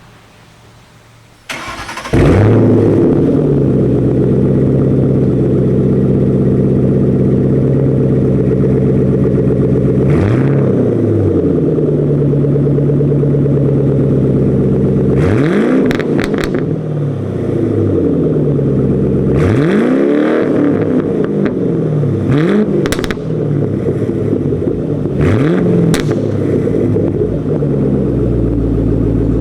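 2010 Mustang GT's 4.6-litre V8 starting about two seconds in and idling through a Roush cat-back exhaust with two resonators, louder than stock. It is revved briefly about five times, each rev rising and falling back to idle.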